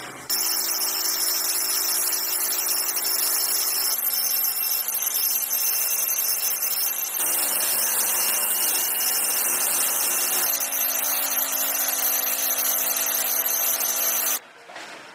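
Electric rotary hammer drill boring into a masonry wall. It runs steadily and loudly, with a grinding whine whose note shifts slightly a few times, and it cuts off suddenly near the end.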